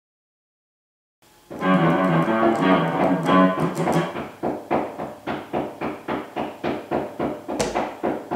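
Electric guitar starting about a second and a half in: a couple of seconds of ringing chords, then single notes picked evenly at about three a second. A sharp click cuts in near the end.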